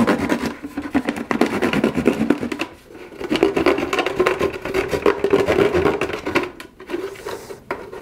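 A knife sawing through the shoulder of a plastic gallon jug with rapid back-and-forth rasping strokes. The sawing pauses briefly about three seconds in and again near the end, as the top comes free.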